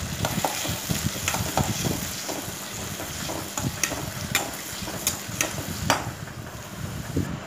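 Sliced onions sizzling in oil in a stainless steel kadai while a metal perforated spatula stirs them, scraping and knocking against the pan at irregular moments, about once or twice a second.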